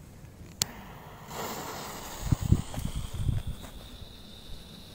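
A sharp click, then the fuse of a firework rocket burning with a steady hiss, with low footstep thumps in the middle as the lighter walks away.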